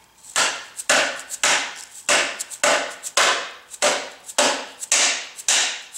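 Mallet striking a seal driver again and again, knocking an oil seal into the bore of a diesel engine's timing cover: steady blows about two a second, some with a lighter second tap.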